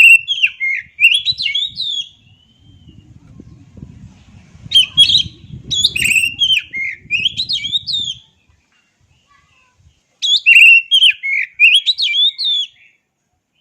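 Oriental magpie-robin singing in three bursts of varied, rapid whistled phrases, each a couple of seconds long, with pauses between them. A faint low rumble runs under the second burst.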